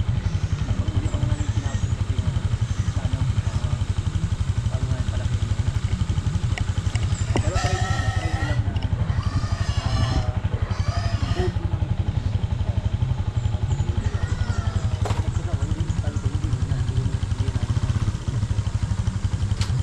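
Small motorcycle engine idling steadily, a fast even low putter that holds the same pitch and level throughout.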